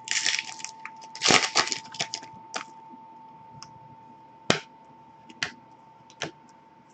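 Foil wrapper of a hockey card pack crinkling and tearing open in two bursts, then cards being handled and tapped down on a desk in a few sharp clicks.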